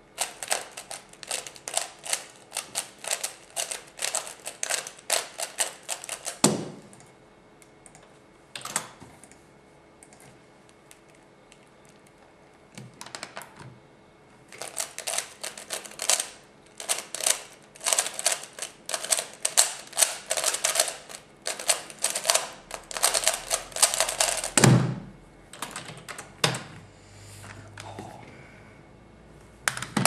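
F-II 3x3 speedcube being turned very fast by hand: dense rapid clicking of plastic layers for about six seconds, then a thump. After a pause with a few stray clicks, about ten seconds of continuous fast turning ends in another, louder thump.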